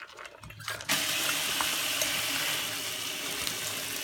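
A few light clicks, then a kitchen tap is turned on about a second in and water runs steadily.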